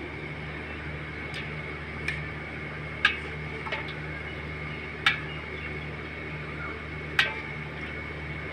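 A metal spoon clinking against a metal pot and a glass dish as milk is spooned over rasmalai, about six short, sharp clinks spaced a second or two apart, over a steady low hum.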